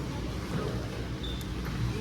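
Low, steady engine rumble of road traffic.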